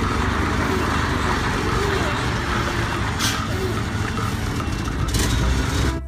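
Diesel engine of an Isuzu concrete mixer truck running as the truck drives slowly, a steady rumble with two short hisses about three and five seconds in.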